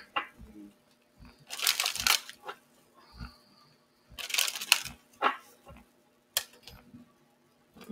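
A deck of oracle cards being shuffled by hand: two short rustling bursts of cards sliding against each other a few seconds apart, with light clicks, then a sharp tap near the end.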